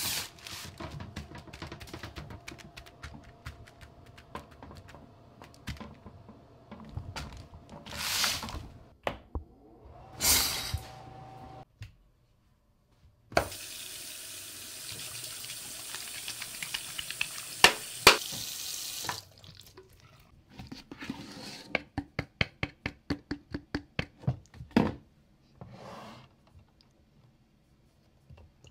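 A bathroom sink tap running, water pouring into the basin for about six seconds midway. Before it come assorted handling noises and a couple of short whooshes. Afterwards comes a run of quick taps and knocks.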